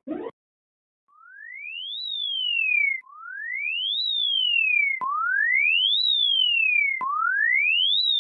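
Electronic alarm tone of the emergency-alert kind: a single pure tone that rises steeply in pitch for about a second, falls partway back for a second, then jumps down with a click and starts again, repeating every two seconds. It begins about a second in and fades in over its first sweep.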